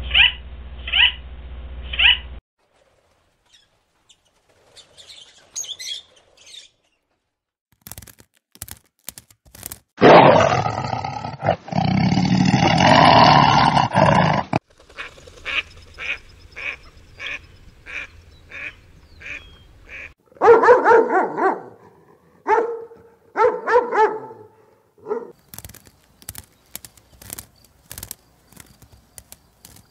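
A run of different animal sounds: scarlet macaws squawking five times at the start, then after a pause a lion growling for several seconds, followed by a series of short clicks and other animal calls.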